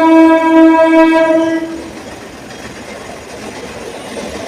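A train horn sounding one long, steady, single-pitched blast that cuts off about two seconds in, followed by a steady rushing noise.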